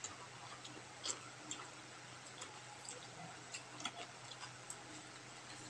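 Close-up eating sounds: soft, irregular clicks of chewing and lip smacking, with a few sharper, crisper bites about a second in and near four seconds.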